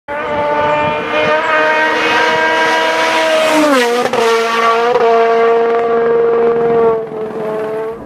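Race car engine running at steady high revs, its pitch dropping once about halfway, with a couple of sharp pops, then holding steady and fading near the end.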